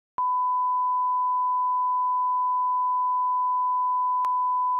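A steady electronic test tone at a single unchanging pitch, with a faint click about four seconds in, then cut off sharply.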